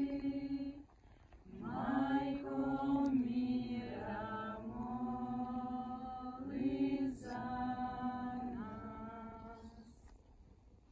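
A group of voices singing a slow hymn a cappella in long held notes, phrase by phrase, with a short break about a second in; the singing stops about ten seconds in.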